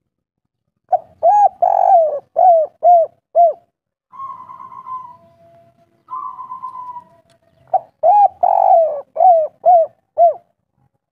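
Spotted dove (tekukur) cooing its 'kuk 3' song: two phrases of about six short, arched coos each, with two quieter, drawn-out notes in between.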